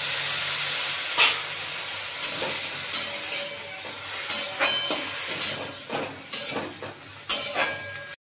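Boiled sweet corn sizzling in hot oil in a kadai while a metal spatula stirs it, knocking and scraping against the pan. The sizzle is strongest at first and fades, while the spatula knocks come irregularly, two of them sharper than the rest.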